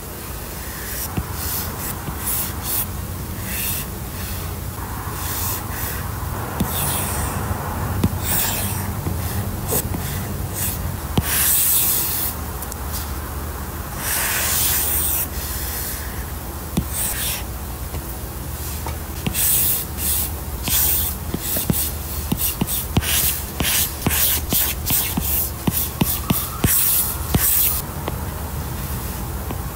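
Pen nib drawing ink lines on paper: a string of scratchy strokes, a few long sweeping ones in the middle, then many quick short strokes near the end, over a steady low hum.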